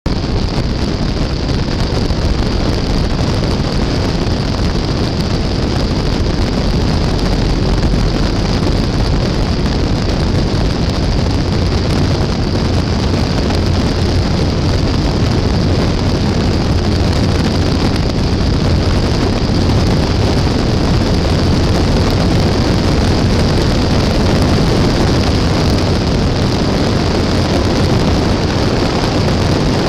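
Mooney light aircraft's piston engine and propeller running steadily, heard from outside the airframe at the tail with wind rushing over the microphone.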